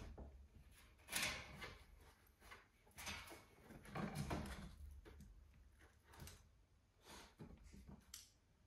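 Faint, irregular scuffs and soft knocks, loudest about a second in, near three seconds and around four seconds in.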